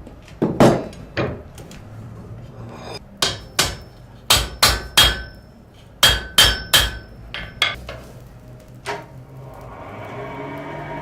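Blacksmith's hammer striking metal on an anvil: about a dozen blows in short quick runs with pauses between, several leaving a brief metallic ring. A steady noise rises near the end.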